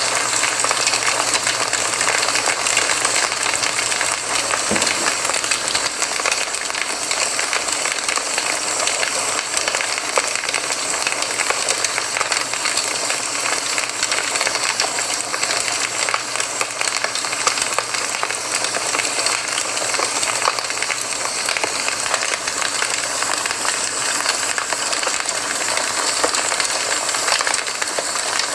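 Campfire crackling steadily: a dense stream of small snaps and pops over a soft hiss.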